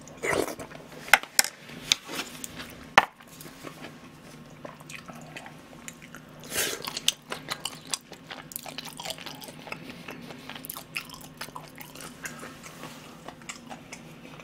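A person chewing food close to the microphone, with mouth noises and several sharp clicks in the first three seconds.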